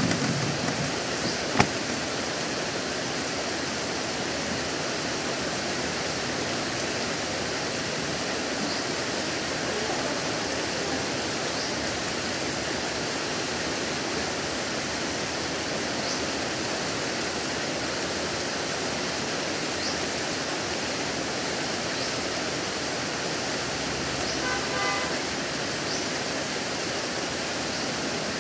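Heavy rain pouring steadily on foliage and ground, a dense even hiss. One sharp click about a second and a half in, and a short run of faint pulsed tones near the end.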